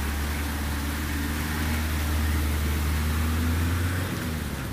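A pickup truck's engine running steadily as it drives through floodwater, over the rushing and splashing of the water. The engine sound swells as the truck passes, then drops away about four seconds in.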